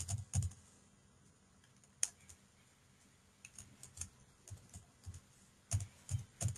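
Keystrokes on a computer keyboard as a password is typed: scattered sharp key taps, a few at the start, a single one about two seconds in, then short runs of quick taps in the second half.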